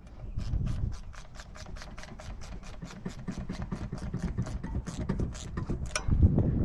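Ratchet wrench on a 10 mm socket clicking steadily, about five or six clicks a second, as a dirt bike's rim lock nut is run down.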